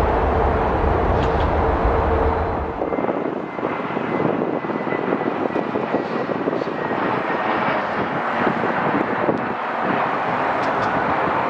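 Boeing 777X's GE9X jet engines running on the runway, loud, with a deep low rumble. The rumble drops away about three seconds in, leaving lighter, steadier jet noise with a faint high whine.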